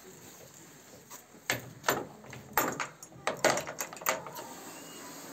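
A horse bridle's metal bit and buckles being washed in a plastic bucket, clinking and knocking against the bucket in several quick rattles between about one and a half and four seconds in.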